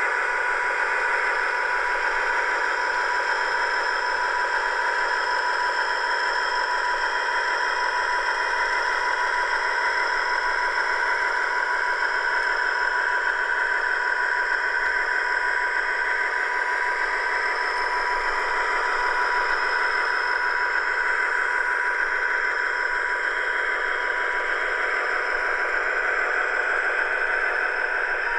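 Dapol 00 gauge Class 59 model's sound decoder playing the EMD two-stroke diesel engine sound through its tiny onboard speaker while the model runs. A steady, thin engine drone with no deep bass.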